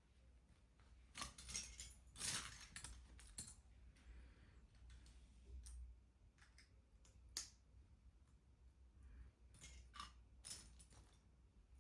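Faint handling of LEGO pieces and packaging: scattered small plastic clicks and rustles, with a few sharper clicks.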